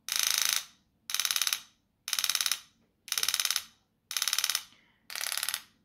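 Solenoid-driven engraving graver handpiece firing in controlled-pulse mode: six half-second bursts of rapid impacts, one about every second, with half-second pauses between.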